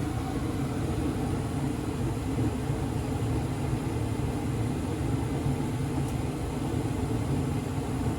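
1995 Carrier 80% gas furnace running steadily after its startup sequence: an even, low rumble.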